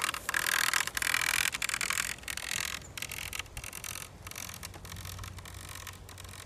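A child's small bicycle rolling on an asphalt path: a steady hiss of tyres on the rough surface, loudest for the first two to three seconds and then fading as the bike pulls away.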